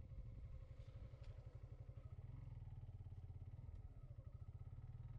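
Motorcycle engine running steadily at low speed, a low, even, rapid pulsing beat.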